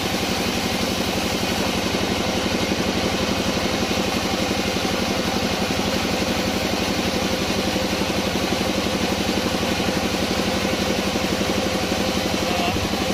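Sawmill machinery running steadily: the engine gives an even, fast pulse with no change in speed.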